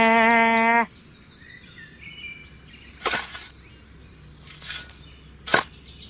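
A steady pitched tone with overtones stops just under a second in. Then a small toy shovel scrapes into a pile of dry sand three times, the last one a sharp click, over faint bird chirps.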